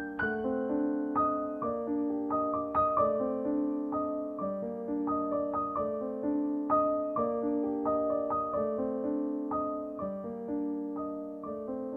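Background piano music: a steady run of struck notes, each fading after it is played.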